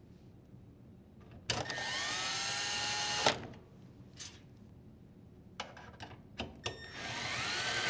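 A quarter-inch drill driver with a 5/16 nut driver bit driving in two screws, one run after the other. Each run's whine rises as the motor spins up and then holds steady for a couple of seconds. The first stops sharply, and the second starts near the end. A few light clicks come between the runs.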